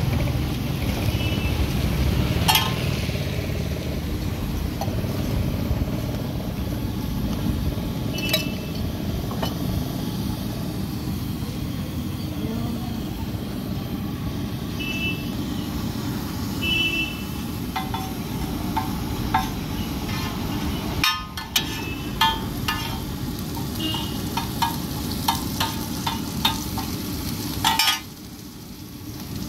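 Oil and chopped onion frying on a large flat iron griddle (tawa), a steady sizzle, with a metal spatula clinking and scraping on the iron many times in the second half.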